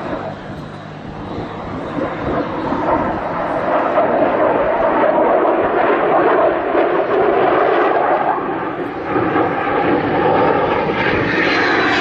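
Fighter jet engine noise: a continuous rushing jet sound that swells over the first few seconds, holds steady, then climbs in pitch near the end as the jet comes closer.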